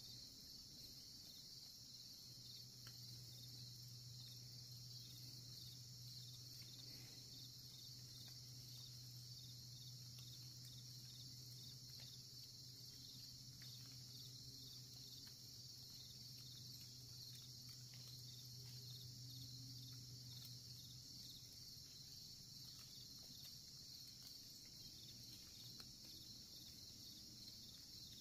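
Faint, steady high-pitched chorus of crickets and other insects, over a low steady hum that fades out about three-quarters of the way through.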